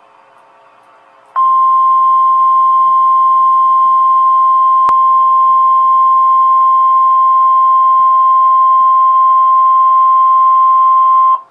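Weather-radio emergency alert attention tone: a single steady, loud, high beep that starts sharply about a second and a half in and holds for about ten seconds before cutting off, signalling that a warning message follows. Faint radio hiss comes before it, and a short click is heard midway.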